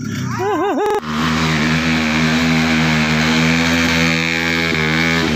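Dirt bike engine held at high, steady revs for several seconds, after a short burst of rising and falling revs in the first second.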